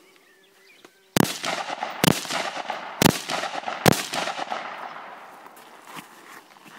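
Four rifle shots fired about a second apart, each followed by a long echo that dies away.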